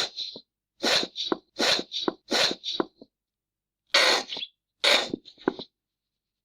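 Squeezed ketchup bottle making farting sounds: a series of short, sharp sputtering bursts as air and sauce spurt from the nozzle, several in quick succession, then two more after a short gap.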